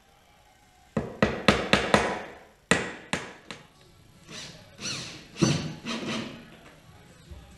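Hammer striking wood: a quick run of about five blows about a second in, then three more spaced-out blows, followed by softer, drawn-out sounds.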